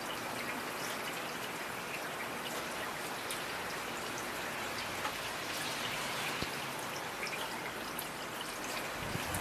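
Steady rain falling, with scattered individual drops ticking through the patter. A low rumble begins at the very end.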